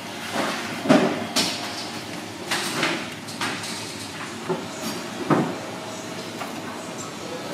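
Irregular knocks and clatters, about eight in five seconds, the loudest about a second in, over a steady background din.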